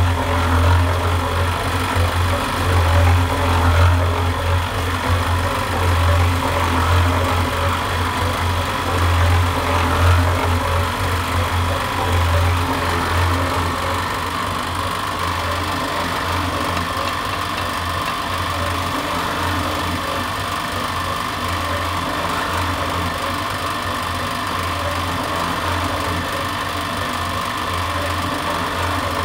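Mini drum mixer running, its drum turning a batch of mortar, with a steady low hum and a churning noise that wavers during the first half and then evens out.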